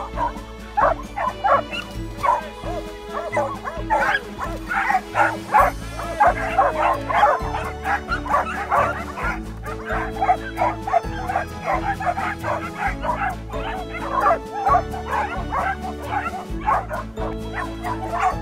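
A pack of dogs barking over and over in short, quick calls, busiest from about four seconds in, over background music.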